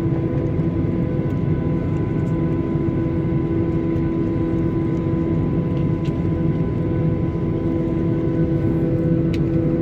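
Steady engine hum inside the cabin of a Boeing 737-800, with its CFM56-7B engines at low taxi power, heard from a seat over the wing. The hum is even and carries a few steady tones, with no rise in thrust.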